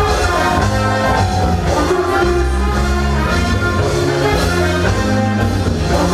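Live reggae band playing loudly, with a heavy bass line under held melodic parts.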